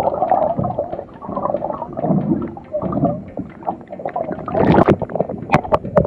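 Muffled gurgling and sloshing of seawater heard through a camera held underwater, ending near the end in a run of sharp splashes as the camera breaks the surface.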